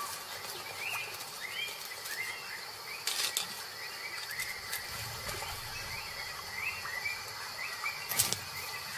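Forest ambience: small birds give short, rising chirps one or two times a second over a steady insect hiss. A sharp crack of dry twigs or leaf litter comes about three seconds in and again near the end.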